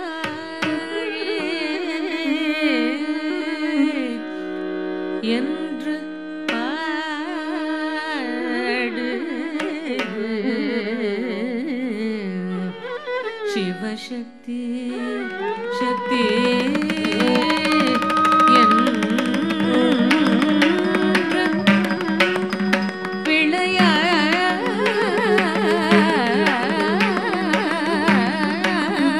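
Carnatic-style Tamil song: a singer's ornamented, wavering melody over held accompanying tones. About halfway in, after a brief dip, the music grows fuller, with a steady drone and drums playing a dense beat.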